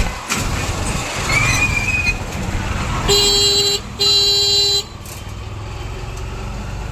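Street traffic with engines running, and a vehicle horn honking twice about three seconds in, two honks of under a second each with a short gap between them.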